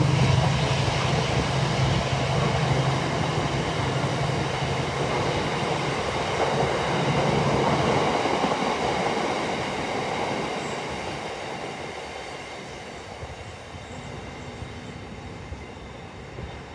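Empty bitumen tank wagons rolling past and away behind a Colas Class 70 diesel locomotive, its engine working as it starts to climb the bank. The engine's low hum fades out about halfway through, and the wheel and rail noise steadily dies away into the distance.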